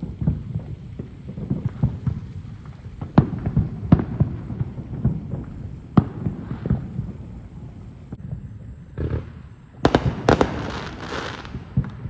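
Fireworks going off: scattered sharp bangs and pops, then a dense burst of crackling bangs near the end.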